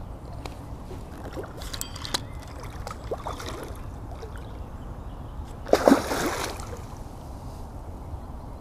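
Water splashing and sloshing as a big hooked carp is played in at the margin, with one loud splash about six seconds in.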